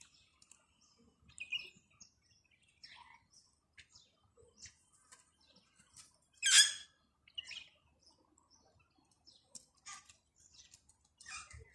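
Birds chirping: scattered short, high calls, with one louder, harsher call about six and a half seconds in.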